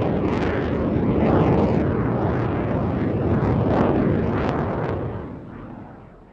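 Jet aircraft noise, a loud rushing rumble with swelling sweeps, fading out near the end.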